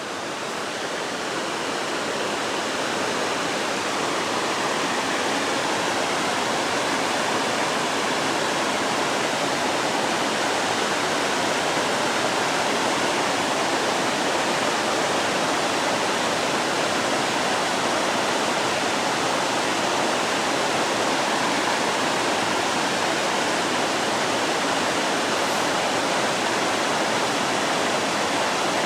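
Small waterfall rushing steadily: falling water splashing in a continuous even roar, fading in over the first couple of seconds.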